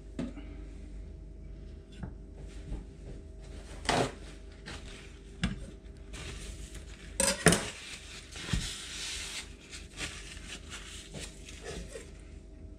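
Kitchen clatter: a few sharp knocks of a knife and utensils being handled and set down on a worktop, the loudest about seven seconds in, with a stretch of rustling hiss in the middle.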